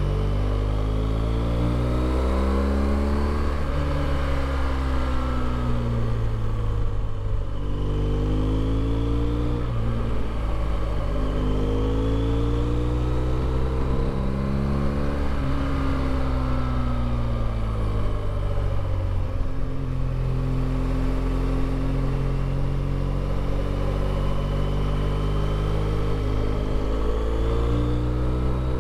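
BMW R1200GS LC's boxer-twin engine running under way, its pitch climbing and dropping again and again as the bike accelerates through the gears and rolls off.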